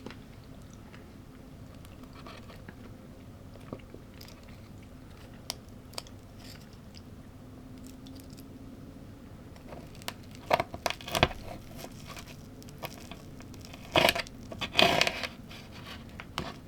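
A person biting and chewing crunchy food close to the microphone. Mostly quiet chewing with a few small clicks, then two clusters of loud crunches about ten and fourteen seconds in, over a faint steady hum.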